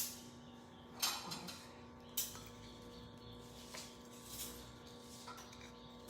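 A few light knocks and clinks of kitchenware being handled, the clearest about one and two seconds in and softer ones after, over a steady low hum.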